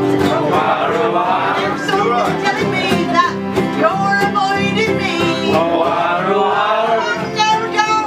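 Live acoustic band playing: strummed ukulele and guitar chords under a wavering melody line.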